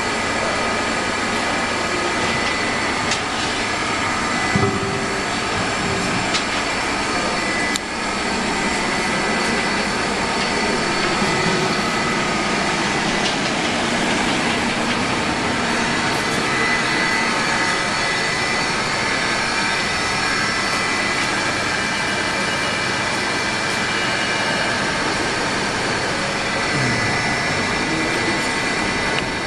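Steady industrial machinery noise, a dense whirring with several constant high whines and a few sharp clicks, typical of automated factory equipment running.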